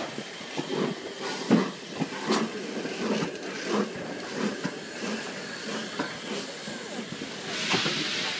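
Crowd chatter with a few short knocks beside the LNER Peppercorn A1 steam locomotive 60163 Tornado, then steam starts hissing from the engine about seven and a half seconds in.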